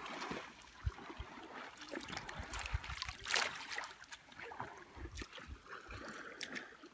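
Light splashing and trickling of shallow lake water, with scattered small clicks and low rumbles.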